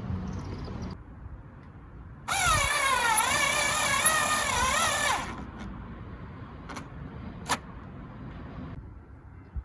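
Cordless power drill running for about three seconds, its whine wavering up and down in pitch. It is followed by two sharp clicks.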